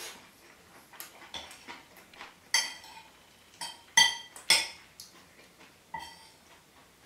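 A metal spoon clinking and scraping against a ceramic plate while eating: a series of sharp, ringing clinks, the loudest near the middle.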